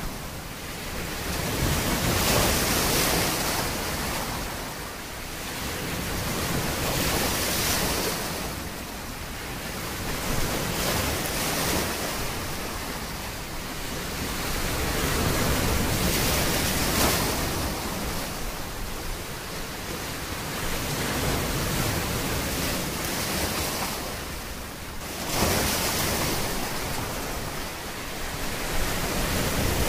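Ocean surf washing in and out, a rushing noise that swells and fades about every four to five seconds.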